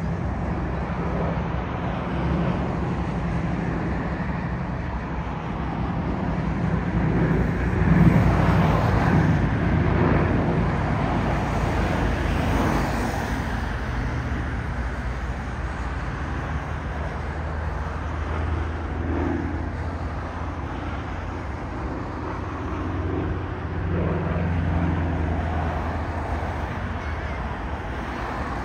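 Piston engines of propeller aircraft droning steadily overhead, swelling louder about eight seconds in and easing off again.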